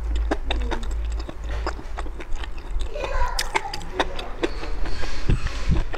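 Close-up chewing of grilled pork belly rolls wrapped around enoki mushrooms: a quick run of wet mouth clicks and squishes as the food is chewed with the mouth closed.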